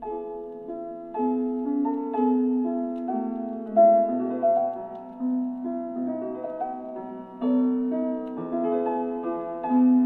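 Slow piano music: single notes and chords struck about once a second and left to ring and overlap.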